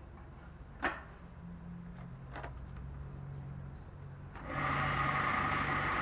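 Homemade leaf shredder powered by a washing-machine motor switched on about four seconds in, then running steadily. Before it starts there is one sharp click and a couple of fainter knocks.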